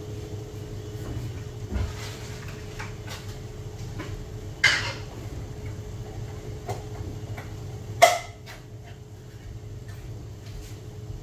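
Metal kitchen utensils knocking against a pot a few times, the two loudest clinks about four and a half and eight seconds in, over a steady low hum.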